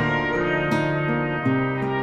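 Instrumental background music, a run of sustained pitched notes that change about every half second.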